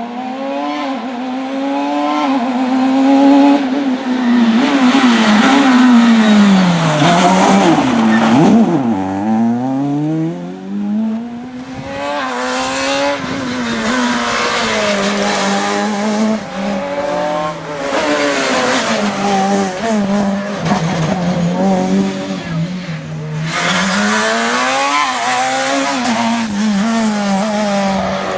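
Rally car engine driven hard on a stage, revving up and dropping back again and again through gear changes and lifts of the throttle. Tyres squeal and hiss in stretches.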